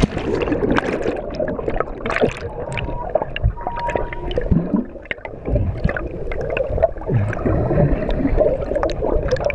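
Water gurgling and bubbling as heard by a submerged camera, muffled, with a steady rush and many small clicks and knocks of water and bubbles against the housing.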